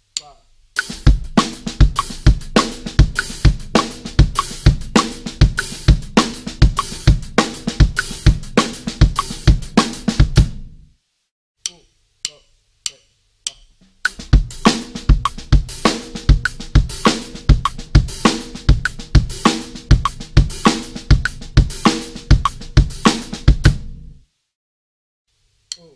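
Drum kit playing two short linear grooves: single strokes spread across hi-hat, snare and bass drum, with the hi-hat opened on chosen notes. Each groove repeats for about ten seconds, and a few evenly spaced count-in clicks come between them.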